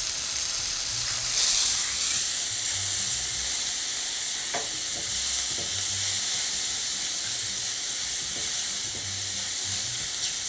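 Sliced mushrooms sizzling steadily as they sauté in a skillet, stirred with a silicone spatula, with a few light ticks of the spatula against the pan around the middle.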